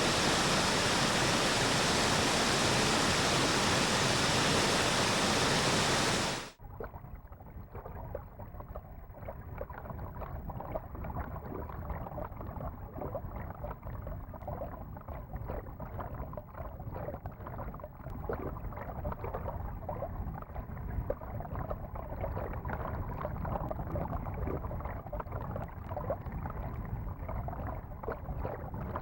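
A loud steady hiss that cuts off suddenly about six seconds in, followed by a rough, crackling rush of water with a low rumble under it.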